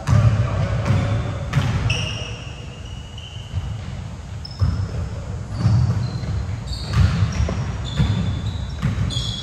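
Basketball bouncing on a gym floor during play: irregular thuds a second or so apart, with short high squeaks over them.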